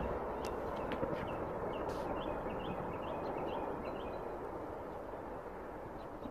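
Several military helicopters flying over, their steady rumble fading slowly as they move off. A bird chirps repeatedly over it.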